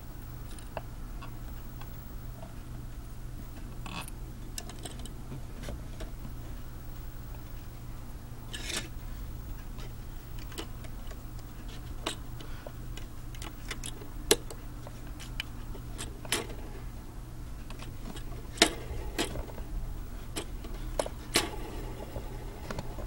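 Irregular small clicks and taps of plastic Lego pieces being handled and snapped together, over a steady low electrical hum.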